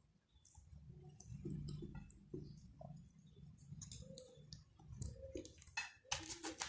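A person eating close to the microphone: chewing, with many small wet mouth clicks and smacks and a louder burst of eating noise near the end.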